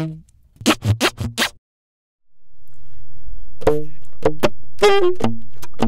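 Tenor saxophone played beatbox-style: quick percussive pops and clicks with short bursts of notes. The playing stops for about a second in the middle. It then resumes over a steady low drone, with pops and short notes riding on top.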